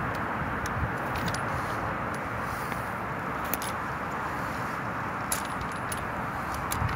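Replica Springfield 1903A3 drill rifle with fixed bayonet being spun and caught: a few scattered light metallic clicks and rattles from the rifle's hardware and the catches, over a steady rushing outdoor noise.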